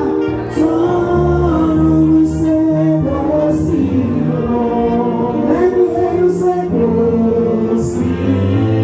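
Gospel praise-and-worship singing: a woman leads into a microphone while a group sings along, with held low notes underneath.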